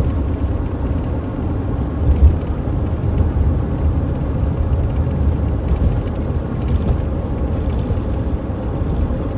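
Steady low rumble of a car driving along a road.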